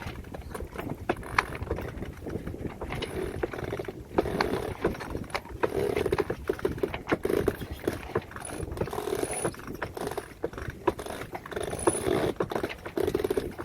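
Sailboat winch being cranked to hoist a person up the mast: irregular clicking of the winch and its pawls, with repeated short bursts of grinding as the line is wound in under load.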